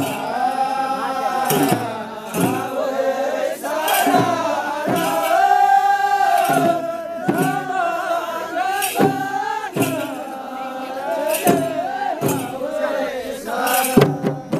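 Kaura folk dance music: singing over a steady percussion beat, about one stroke every 0.8 seconds.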